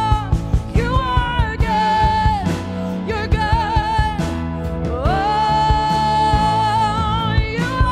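Worship song with a lead singer over a band and a steady drum beat. The singer holds one long note from about five seconds in until near the end.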